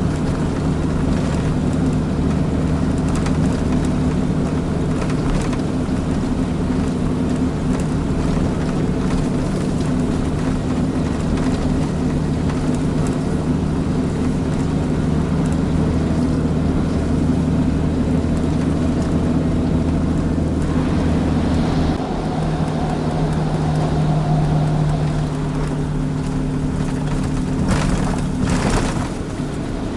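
Mitsubishi Fuso Super Great truck's diesel engine running steadily under load, heard from inside the cab with road rumble. The engine note shifts about 22 seconds in, and there are a couple of brief knocks near the end.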